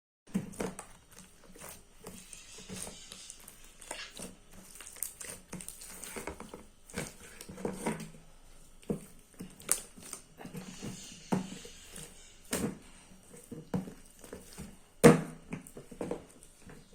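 Slime being squeezed and handled by hand, making irregular squelching pops and clicks, with one louder pop near the end.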